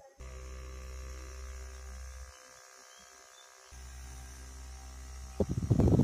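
Small DC motor of a homemade table fan running with a steady hum, dropping out for about a second and a half around the middle and then running again. Near the end a much louder rushing noise sets in, the fan's air blowing across the microphone.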